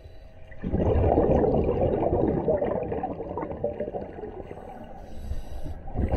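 Scuba diver breathing through a regulator underwater. A long exhalation of bubbles starts about a second in, a short hiss of inhalation comes near the end, then bubbling starts again.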